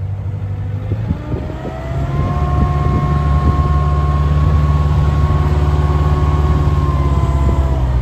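Bobcat 743B skid steer loader running as it is driven and turned: the engine revs up about two seconds in, holds at high revs with a steady whine, and eases off near the end.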